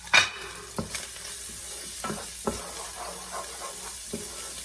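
Onion and spice masala frying in plenty of oil, sizzling steadily, while it is stirred; the utensil knocks and scrapes against the pan several times, with a loud clatter just after the start.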